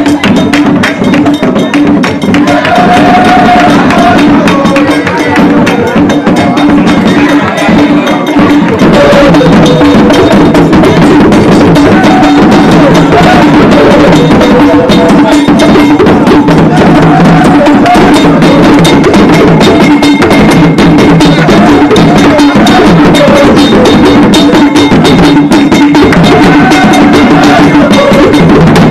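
Loud Ewe traditional drum ensemble: several drums and a struck bell in a fast, dense interlocking rhythm, with a melody line above it.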